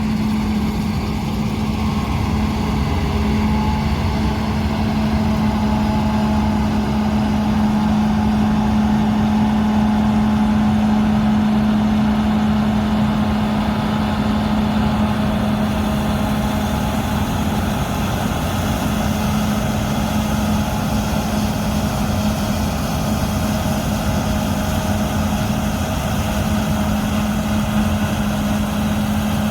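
Large diesel harvest machinery running steadily, with a strong, even low hum that holds unchanged throughout.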